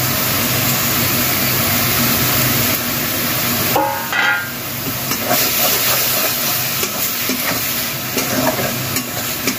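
Coconut and green chilli paste sizzling in hot oil in a steel kadai, a steady frying hiss. About four seconds in comes a short high-pitched sound, and a spatula scrapes and stirs the paste in the second half.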